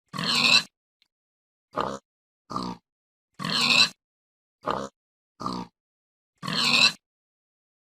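A pig grunting in a repeating pattern: two short grunts, then a longer, louder oink that swells, three times over.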